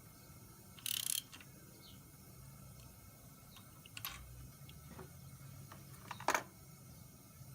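Metal tools working on a cylinder head during valve spring replacement: a short burst of hiss about a second in, then scattered sharp metallic clicks and taps, the loudest a little past six seconds, over a steady low hum.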